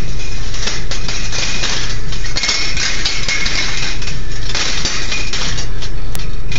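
Steel balls rolling and clattering along the tracks of a stainless steel wire rolling ball sculpture: a dense stream of small metallic clicks and clinks over a steady low hum.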